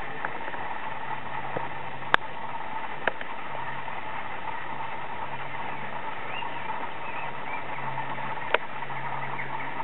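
Hayter rotary lawnmower's petrol engine running steadily at idle, with a few sharp clicks.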